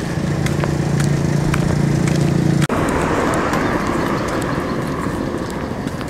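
Footsteps on pavement, about two steps a second, of someone walking. Under them a steady engine hum runs through the first half and cuts off abruptly, giving way to an even rushing noise.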